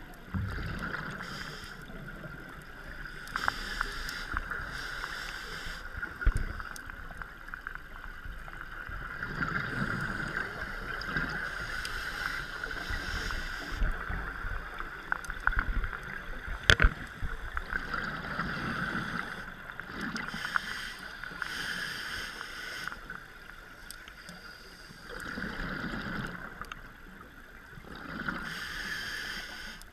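A scuba diver breathing underwater through a regulator: bursts of exhaled bubbles rumble out every few seconds over a steady high hum, with a couple of sharp clicks.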